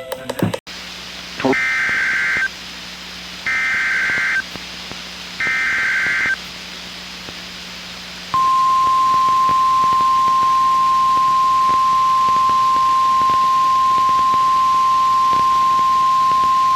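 Emergency Alert System SAME header: three one-second bursts of warbling data tones, about two seconds apart. A few seconds later comes NOAA Weather Radio's 1050 Hz warning alarm tone, a single steady pitch held for about nine seconds, which marks a weather warning about to be read.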